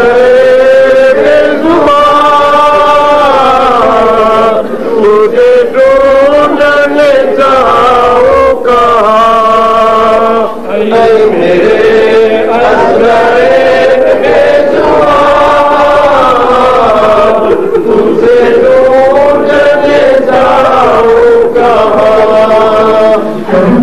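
Men chanting a Shia mourning lament into microphones, in long, drawn-out melodic lines.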